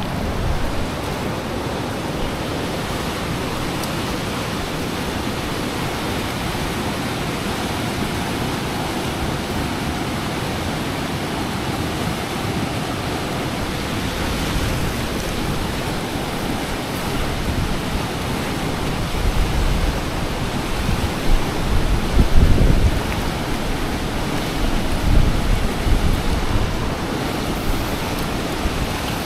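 Steady rush of fast-flowing river water below a dam. From about two-thirds of the way in, irregular low gusts of wind buffet the microphone.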